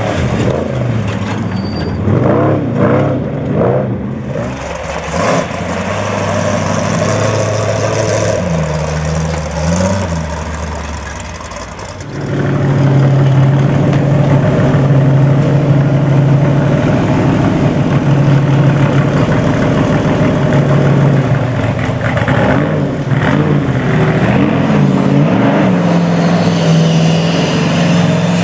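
Off-road race vehicle engines revving up and down. About twelve seconds in a louder engine sets in close by, running steady at one pitch.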